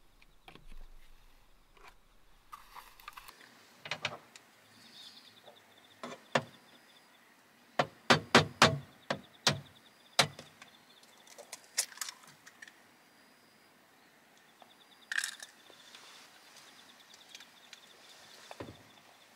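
Small hard objects being handled: scattered sharp clicks and knocks, with a quick run of four about eight seconds in.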